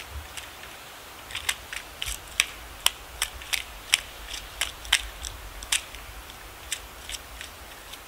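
Eurasian three-toed woodpecker pecking and chipping at pine bark while foraging for insects underneath: sharp, irregular taps, two or three a second, loudest and most frequent in the middle, thinning out towards the end.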